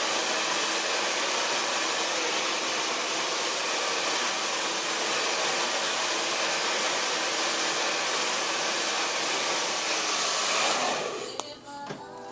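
Handheld blow dryer running steadily on the hair while a section is heated and dried on a round brush before going onto a Velcro roller. It switches off about eleven seconds in, followed by a few light clicks.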